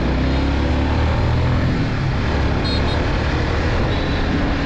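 Honda CBR150R single-cylinder motorcycle running steadily at speed, with wind rumble on the microphone.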